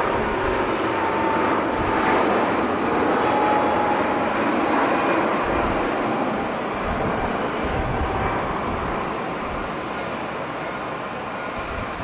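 Boeing 777 twin jet engines at takeoff power as the airliner lifts off and climbs away: a steady rushing noise that slowly fades over the last few seconds. A low rumble of wind runs on the microphone under it.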